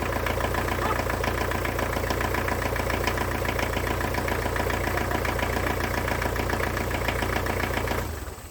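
Kubota L4200 tractor's diesel engine idling steadily on its first run after sitting for years, then shut off near the end.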